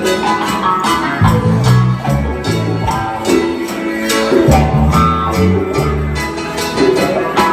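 Live band playing a reggae song on electric guitar, bass guitar, drums and keyboard, with a steady bass line and regular hi-hat ticks.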